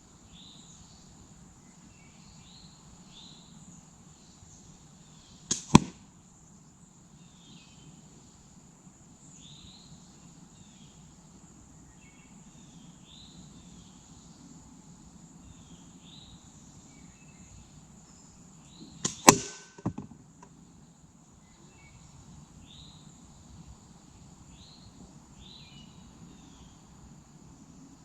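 Two shots at targets, about 13 seconds apart, each a sharp snap followed within a fraction of a second by a second crack as the target is hit. A steady high insect buzz and repeated short chirps run underneath.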